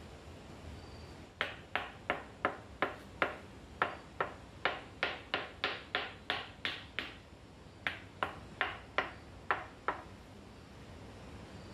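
Ceramic wall tile being tapped down into wet mortar with the handle of a trowel: about twenty sharp, lightly ringing taps, roughly three a second, with a short pause partway through, the tile being bedded level on a brick stove top.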